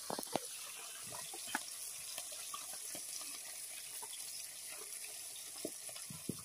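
Small hariya river fish sizzling steadily in hot oil in a metal kadai, with a few sharp clicks of a metal spatula against the pan.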